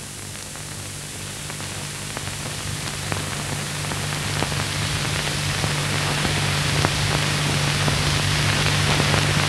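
Steady low hum under a hiss with scattered crackles, swelling gradually louder.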